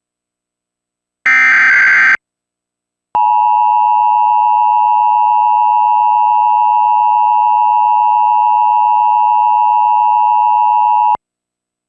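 Emergency Alert System test signal: a short burst of digital data tones, the SAME header, then about a second of silence. After that comes the steady two-tone EAS attention signal (853 and 960 Hz together), held for about eight seconds and cut off abruptly.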